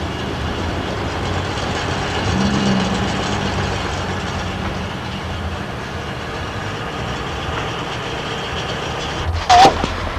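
Steady street noise with a vehicle engine running; its note swells about two seconds in and then fades. A brief, loud, high-pitched sliding sound comes near the end.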